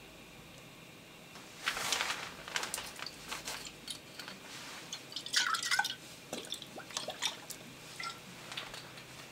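Worcestershire sauce dripping from its bottle into a pot of soup: a scatter of drips and light clicks, busiest about five to six seconds in.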